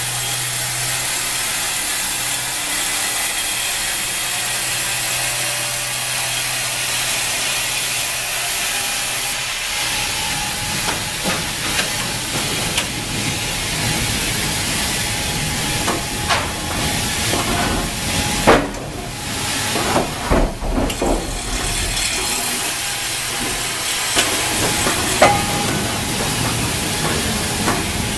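Wravor log band sawmill running: a steady hiss over a low hum for the first ten seconds or so, then a rougher, lower machine noise with scattered knocks and clanks.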